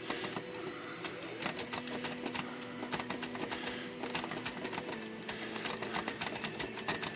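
Torpedo 18B manual typewriter being typed on, keys striking the freshly fitted platen roller in a quick, irregular run of clacks, a test of the new platen.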